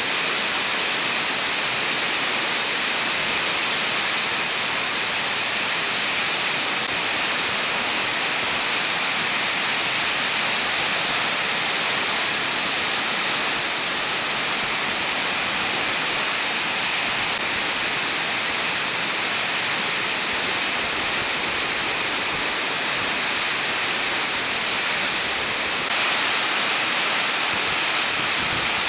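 Heavy hail and rain falling hard onto the ground, a dense, steady hiss with no single strikes standing out. Its character shifts slightly near the end.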